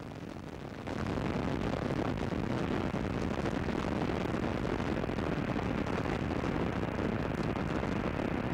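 Space Shuttle Columbia's rocket noise during ascent, its solid rocket boosters and main engines burning: a steady, deep rushing noise that steps up in level about a second in.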